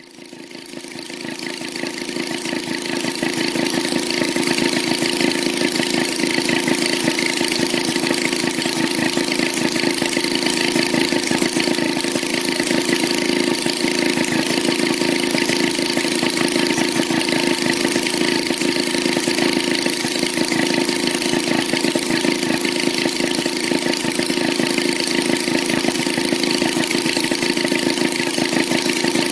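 Maytag Model 72 twin-cylinder two-stroke engine running unloaded at a steady speed, with a fast, even firing rhythm. It rises in level over the first few seconds, then holds steady.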